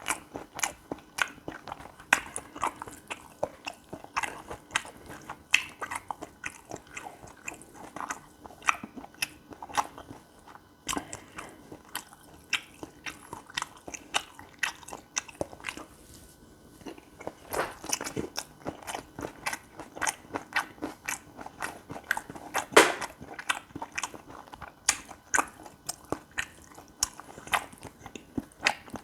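Close-miked mouth sounds of a person chewing gopchang fried rice: a steady run of short wet clicks and crunches, about two to three a second, easing for a few seconds in the middle.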